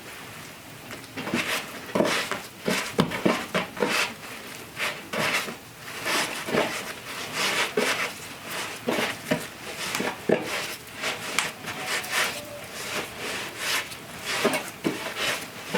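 Irregular knocks and scrapes of wooden kitchen utensils and cookware being handled, a few a second.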